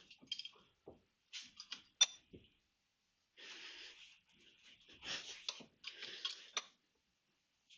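Small metal derailleur parts being handled and checked: scattered clicks and taps, with two stretches of scraping or rubbing, one about three and a half seconds in and a longer one about five seconds in.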